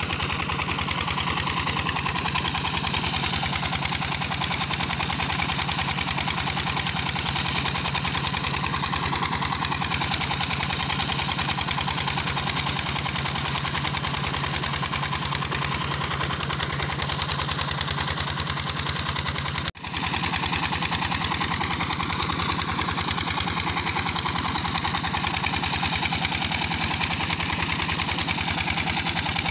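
Small stationary diesel engine driving a tube-well water pump, running steadily at a fast, even chug. The sound drops out for a split second about two-thirds of the way through.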